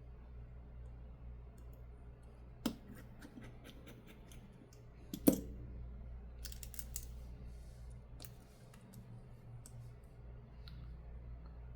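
Small repair tools clicking and tapping on a smartphone's frame and parts while screws are put back, with two sharper clicks about a third and two thirds of the way in, over a steady low hum.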